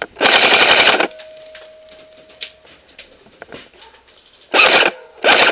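Airsoft AK-74M rifle firing on full auto close to the microphone: one burst of almost a second at the start, then two short bursts near the end, with light clicks and rattles between.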